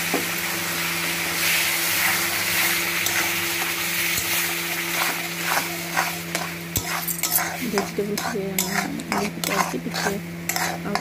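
Semolina upma cooking in a metal kadai. Hot water sizzles into the roasted semolina, then a metal spatula stirs and scrapes the thickening mixture against the pan, with quick repeated scrapes in the second half. A steady low hum runs underneath.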